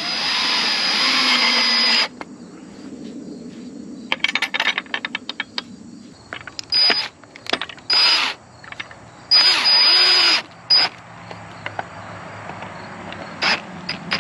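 Snap-on cordless drill driving screws through a metal hinge into a wooden 2x4: one run of about two seconds at the start, then several short bursts and a second run of about a second past the middle, with a last short burst near the end.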